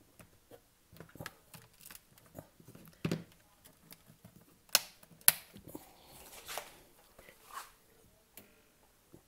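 Hands handling a mains power cord and its plug at the back of a soldering station: scattered rustles and small plastic clicks, with two sharp clicks about half a second apart near the middle.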